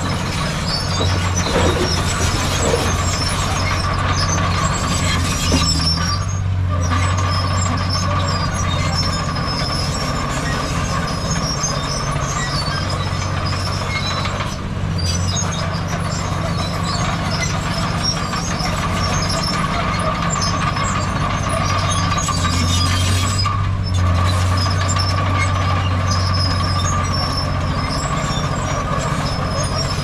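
Heavy earthmoving machinery running steadily: a deep diesel engine drone with a higher whine over it and scattered high metallic squeaks, dipping briefly three times.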